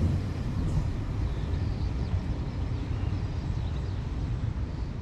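Freight train wagons rolling along the track, a low steady rumble that eases slightly as the train draws away.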